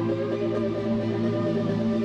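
Background music: a slow ambient piece of long held chords at an even level.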